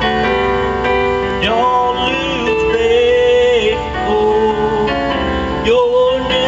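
A man singing a song into a microphone with electronic keyboard accompaniment, amplified through a PA. The keyboard holds chords at first, the voice comes in about a second and a half in, drops out briefly and comes back near the end.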